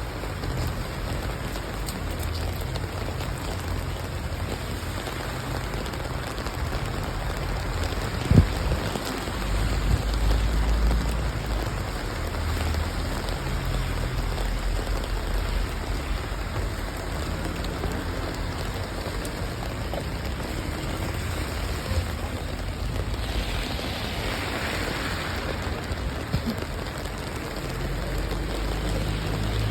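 Steady rain falling, with a low rumble underneath. A single sharp knock about eight seconds in, and a swell of hiss a little after twenty seconds.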